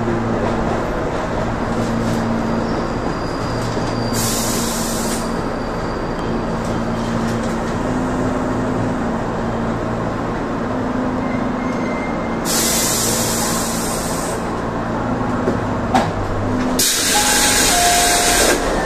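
Electric commuter train running into a station and braking to a stop, heard from inside the driver's cab: a steady running rumble with a low motor hum, broken by three bursts of air hiss, the last as the train halts near the end.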